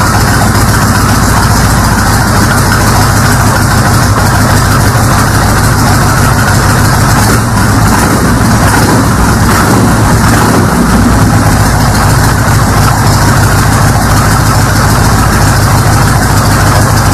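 Cruiser motorcycle engine idling steadily just after being started. Its charging system is charging the battery well, at about 14.3 volts.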